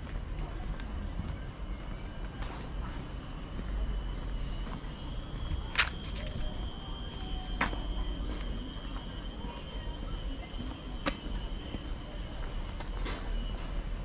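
Steady high-pitched drone of tropical forest insects, several shrill tones held together, over a low rumble. A few sharp clicks come through, the loudest about six seconds in.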